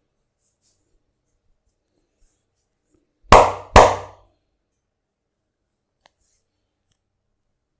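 Two loud hand slaps in quick succession, about half a second apart, each fading over a fraction of a second, as a barber massages a client. A faint click follows a few seconds later.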